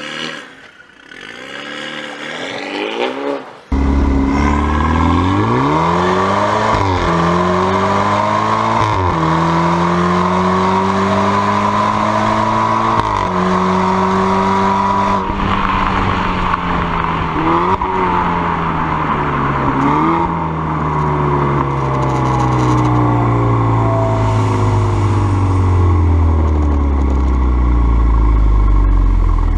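BMW F30 328i's turbocharged four-cylinder through an Armytrix valved exhaust with the valves open, pulling hard from a standstill, then heard close at the tailpipes. The engine pitch climbs and drops back at each of several gear changes, then falls steadily as the car slows over the last ten seconds.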